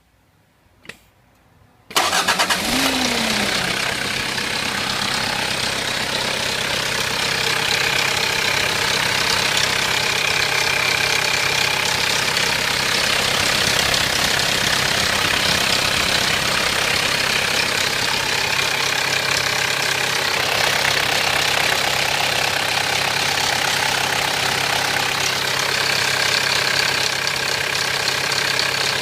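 A 1993 Mitsubishi Pajero's 2.8-litre diesel engine cranks and catches about two seconds in, flares up and drops back, then idles steadily. The idle carries a rattle that the owner suspects is the timing chain.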